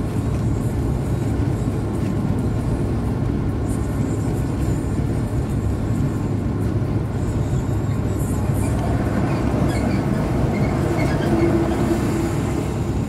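Steady rumble of a car driving at highway speed, heard from inside the cabin: tyre and road noise with engine hum.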